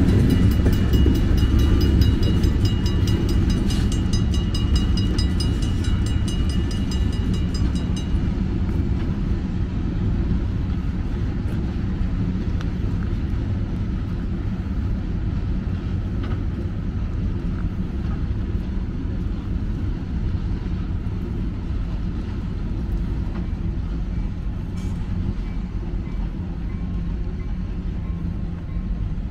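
Train rolling by with a steady low rumble. For the first eight seconds or so there is rapid, even clicking and a high, thin squeal over it, then the rumble slowly fades.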